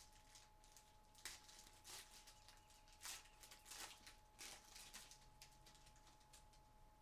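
Faint rustling and soft clicks of trading cards being handled and flipped, about half a dozen strokes in the first five seconds, over a faint steady electronic hum.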